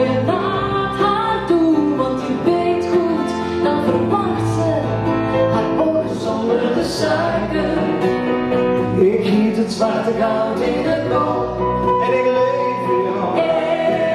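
Live acoustic band playing a song: acoustic guitar, keyboard and upright double bass, with a woman singing into a microphone.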